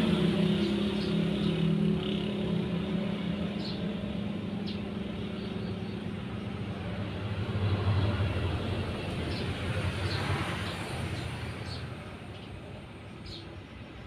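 Road traffic with a vehicle engine running, louder at the start and again about eight seconds in. A few short, faint high chirps from Eurasian tree sparrows are heard over it.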